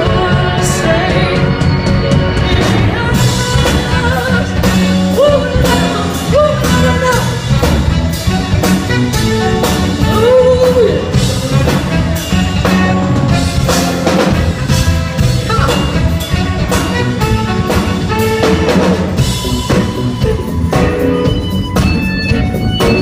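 Live band playing loud, with a driving drum kit, bass and a horn section carrying the melody in an instrumental stretch.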